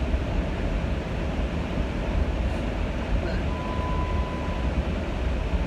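Steady low rumble of road and engine noise inside a moving car's cabin. About three and a half seconds in, a single steady beep sounds for about a second.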